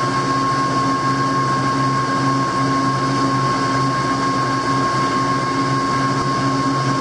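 Metal lathe running at speed while a knurling tool's wheels roll a diamond knurl into the turning shaft under power feed. It gives a steady high whine over a low hum that wavers unevenly.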